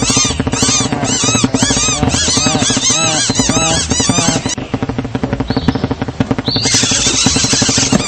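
Cartoon bird voices: a flock of small animated birds chattering in rapid, overlapping squeaky chirps. The chirping thins out about halfway through, and a burst of hiss rises near the end.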